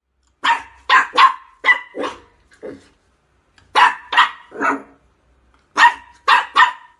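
A dog barking in three short runs of sharp barks, a few barks each, with brief pauses between the runs.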